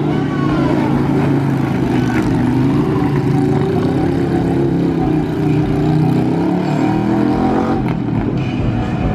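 Stunt motorcycle engine revving, its pitch rising and falling repeatedly.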